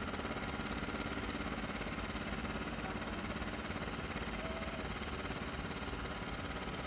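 Steady engine hum of ground-service machinery around a parked airliner, running evenly without change.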